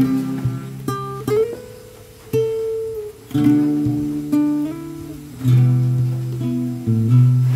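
Background music: an acoustic guitar picking and strumming chords, with a new chord roughly every second.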